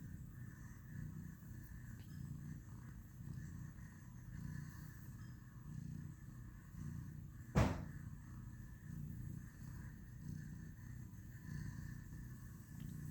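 Domestic cat purring softly, a low rumble that swells and fades with each breath. One sudden short thump about seven and a half seconds in.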